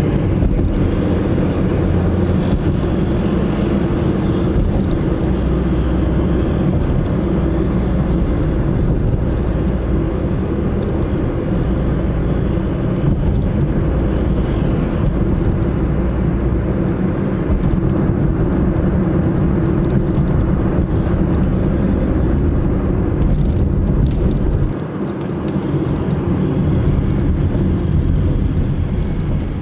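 Car driving on a city street: steady low engine and road rumble that eases briefly about 25 seconds in.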